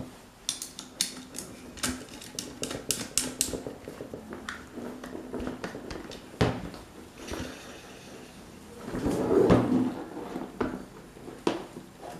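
Metal clicking and clattering as a screwdriver and hands work on an electric fan motor's steel housing: a run of quick sharp clicks in the first few seconds, then a few louder knocks and a longer, louder clatter about nine seconds in.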